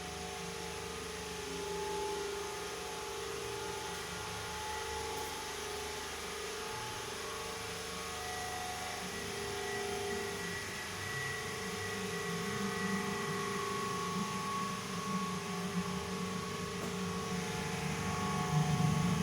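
Steady mechanical drone of a running motor, with a few held tones that waver slightly; it grows louder and heavier in the low end over the last several seconds.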